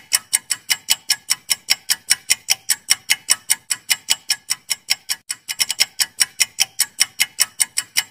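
Clock-ticking sound effect marking a quiz countdown timer: sharp, even ticks about five a second, briefly doubling into a faster patter a little past halfway.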